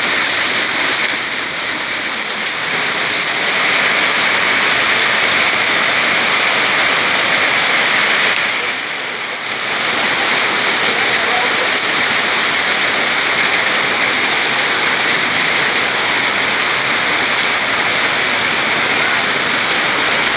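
Hail and heavy rain pelting down on surfaces: a loud, dense, steady hiss that eases briefly about nine seconds in.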